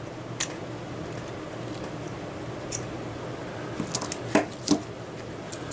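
Clicks and light taps of a small 3D-printer cooling fan being taken apart by hand as its impeller is pulled out of the frame, with a cluster of clicks about four seconds in, over a steady low hum.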